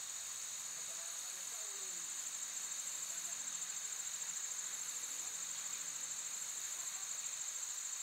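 Insects trilling in a steady, high-pitched chorus, with a rapid even pulse to the trill.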